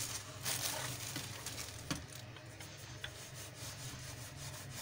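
A ball of paratha dough pressed flat by hand and then rolled out with a wooden rolling pin on a mat: soft rubbing with a few light knocks.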